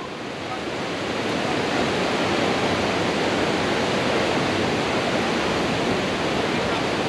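Steady rushing of river water pouring over a waterfall or rapids, an even, continuous noise.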